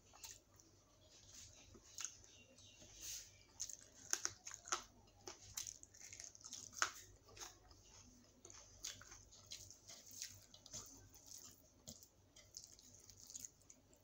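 Close-up chewing and mouth sounds of a person eating rice, yellow dal and dum aloo by hand, in short irregular clicks, loudest a little after four seconds and again near seven seconds.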